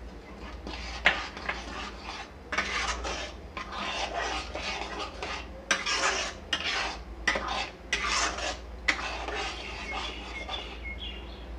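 A metal ladle stirring thick curry gravy in a metal kadhai, scraping over the pan in irregular strokes, with a few sharp clinks of metal on metal.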